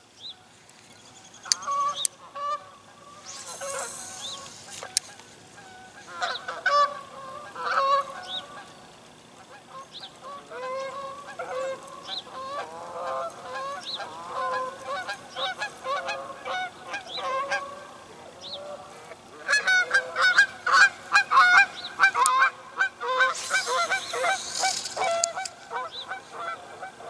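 A flock of geese honking, many overlapping calls that grow thicker and louder about three-quarters of the way through.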